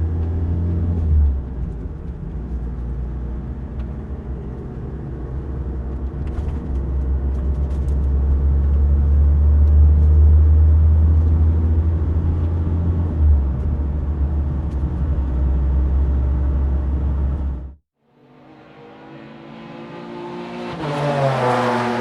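A car driving, its engine a steady low rumble that swells and eases; about 18 seconds in it cuts off abruptly, and a new recording of a vehicle fades in, growing louder and dropping in pitch as it passes.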